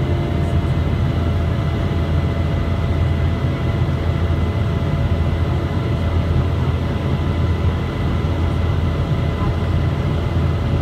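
Boeing 717's rear-mounted Rolls-Royce BR715 turbofans heard from inside the cabin during the climb after takeoff: a steady, loud drone with a deep rumble and a few faint steady whines above it.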